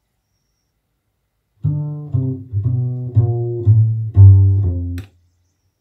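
Music played from a Denon DCD-595 CD player through loudspeakers. After about a second and a half of silence a track begins: a low bass melody of about eight notes, which cuts off abruptly about five seconds in.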